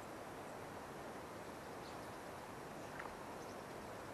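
Steady wind noise over open water, with a few faint high chirps and one short click about three seconds in.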